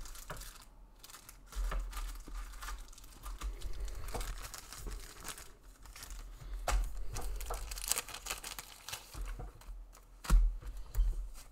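Plastic card sleeves and their packaging crinkling and rustling as they are handled, with scattered light clicks and a few low bumps, the loudest about ten seconds in.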